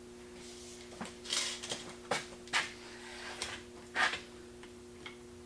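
Handling noise while measuring a drilled hole: several light clicks and knocks, spaced irregularly between about one and four seconds in, over a faint steady hum.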